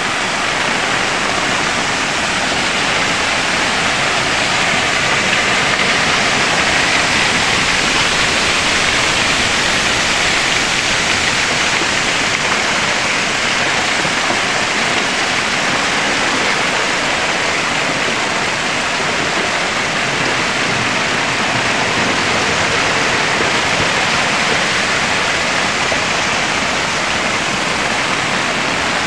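Muddy floodwater rushing and pouring down a stone-walled channel in a steady, loud torrent.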